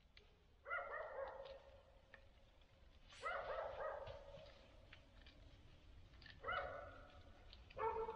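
Dogs barking faintly in the distance: four separate barks spread over a few seconds, each trailing off into an echo.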